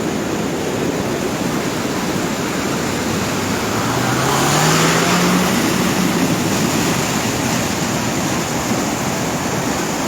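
Loud, steady rush of floodwater, with a vehicle engine rising in pitch about four seconds in as the noise swells.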